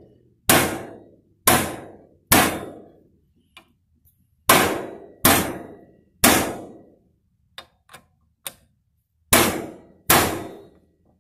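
Hammer blows driving a new wheel bearing into its housing: eight sharp metallic strikes in uneven groups of two or three, each ringing briefly, with a few faint taps between.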